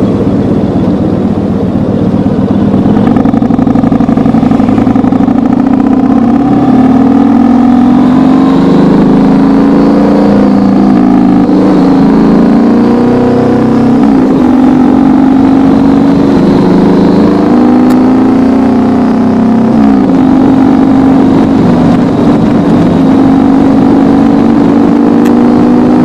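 Yamaha MT-01's 1670 cc V-twin engine running loud through aftermarket exhausts while under way, its note rising and falling several times with the throttle.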